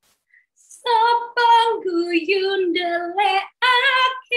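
A woman's voice singing long, high, wordless notes with vibrato, starting about a second in and stepping down in pitch before rising again near the end.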